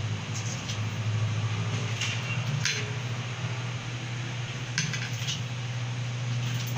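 Grooming tools, a plastic slicker brush and a steel comb, clicking and knocking against the grooming table as they are put down and picked up, a few separate clatters over a steady low hum.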